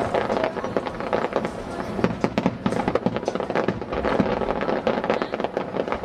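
Aerial firework shells bursting in quick, irregular succession: a continuous string of bangs and crackles.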